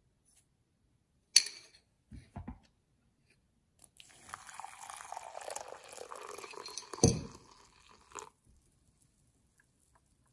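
Hot water poured into a glass measuring cup of instant coffee granules: a steady splashing pour of about four seconds, with a sharp thump near its end. A click and two short knocks come before the pour starts.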